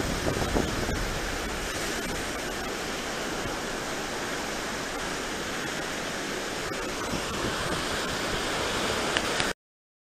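Steady rush of surf breaking and washing up a sandy beach, cutting off abruptly near the end.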